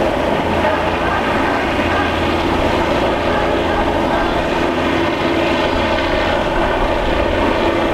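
Steady engine drone with a constant low hum, unchanging throughout.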